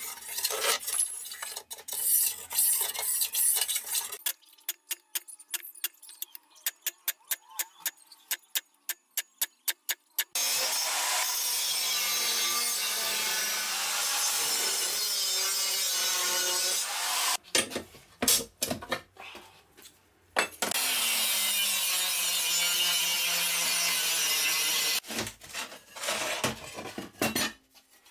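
Angle grinder cutting a steel plate: a steady run of about seven seconds, a stop with a few knocks, then about four seconds more of cutting. Before the cutting, light metal clinks and a quick run of ticks, about four a second.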